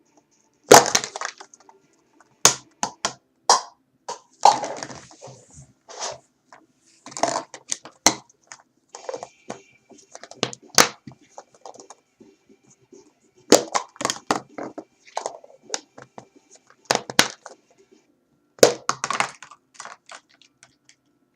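A series of sharp pops and cracks at irregular intervals, some single and some in quick clusters trailing off into crackles, with short quiet gaps between.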